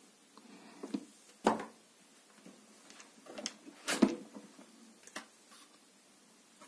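Unpacking noises: cardboard packing inserts scraping and rustling as they are pulled out, with a few knocks and clicks as the plastic pressure-washer housing is handled. The loudest knock comes about four seconds in.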